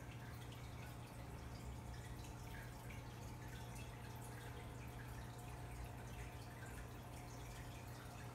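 Aquarium filter running: water trickling and dripping over a low steady hum.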